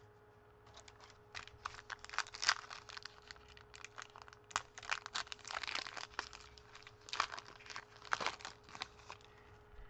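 Foil wrapper of a baseball card pack crinkling and tearing as it is opened, in a run of quick, irregular rustles and crackles.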